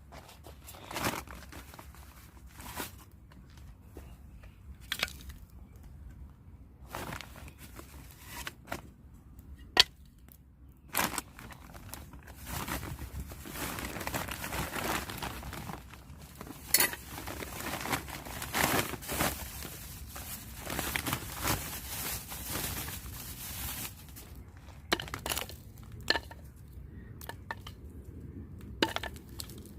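Crinkling and rustling of something being handled, with scattered sharp clicks and knocks; the rustling thickens for several seconds in the middle.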